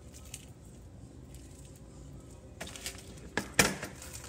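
Sticky marshmallow and chocolate crisped-rice cereal being squeezed and pressed into a ball by hand, giving soft crackles and a few sharp clicks in the second half, the loudest a knock about three and a half seconds in.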